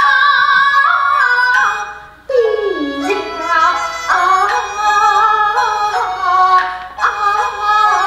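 Kunqu opera accompaniment music: a flute-led melody with wavering, ornamented notes over the ensemble, with a brief lull about two seconds in before the music resumes on a lower, falling line.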